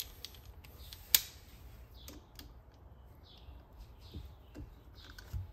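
Scattered light metallic clicks and taps of a socket wrench and extension being worked on the raw-water pump's cover screws, with one sharp click about a second in.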